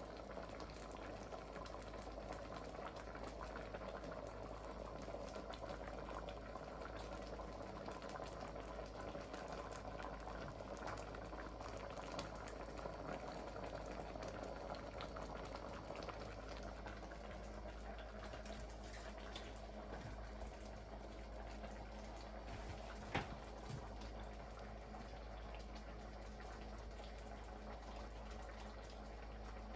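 Pot of stew peas with pig tails bubbling steadily at a simmer. A single sharp click about 23 seconds in.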